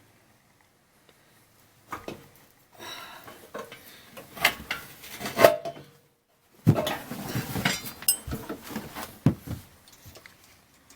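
Metal parts and tools clanking and rattling as they are handled, in irregular knocks with brief ringing. It starts about two seconds in and has a short pause about halfway through.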